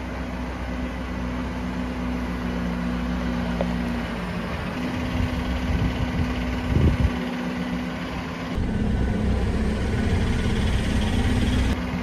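Diesel engine of a Mercedes-Benz Unimog running at low speed as it pulls its trailer slowly forward, with a brief louder surge about seven seconds in.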